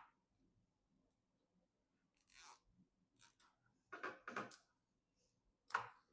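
Hands handling PC parts: a sharp click at the start, then several short scrapes and rustles spread over the next few seconds.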